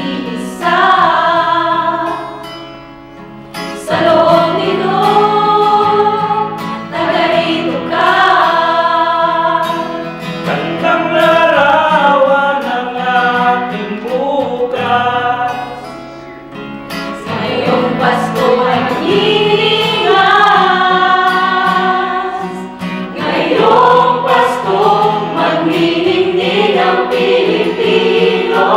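Mixed choir of men and women singing a hymn with acoustic guitar accompaniment, in phrases with brief breaths between them.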